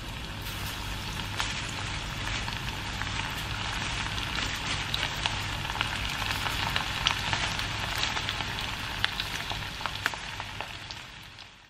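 Chicken karaage pieces deep-frying in hot oil in a cast-iron wok: a steady, dense sizzle full of sharp popping crackles, as more battered pieces are lowered in one by one. The sound drops away abruptly right at the end.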